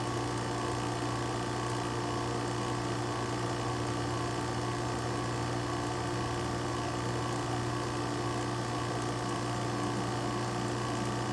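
HVAC vacuum pump running steadily with an even low hum.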